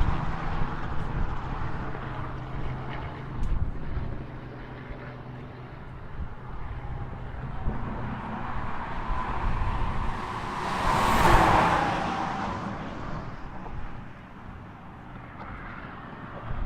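Highway traffic going by, with one vehicle passing close: its noise swells to a peak about two thirds of the way through, then fades away.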